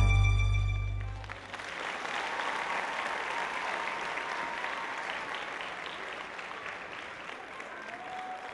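A piece of music ends on a held chord that fades out about a second in, and audience applause follows, slowly dying down.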